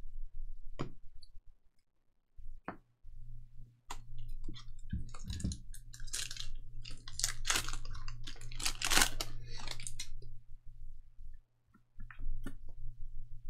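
Trading card packs and cards being handled: scattered clicks and taps, then several seconds of crinkling and rustling in the middle, over a low steady hum.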